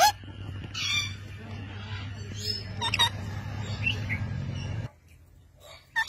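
Young Alexandrine parakeets giving several short, harsh calls, spaced a second or so apart, over a steady low hum that cuts off abruptly near the end.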